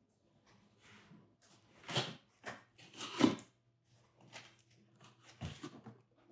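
Cardboard shipping box being handled and its packing tape picked at and cut open: a run of irregular rustles and scrapes, loudest about two and three seconds in.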